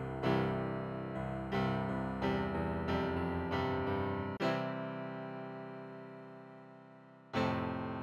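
Background music on a piano-like keyboard: notes and chords struck every half second or so in the first half, one chord left to fade, then another struck near the end.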